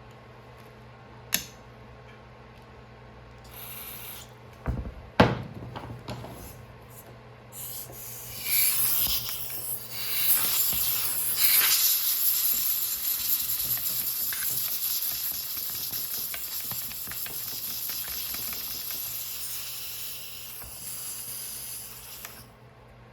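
A spray hissing in long, steady blasts for about fourteen seconds, cleaning out the chainsaw's parts; a couple of short knocks come before it.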